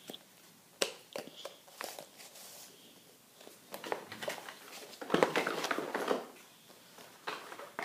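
Small cardboard puzzle pieces and their box being handled. There are a few sharp taps and knocks, then a burst of rustling and clatter about five seconds in.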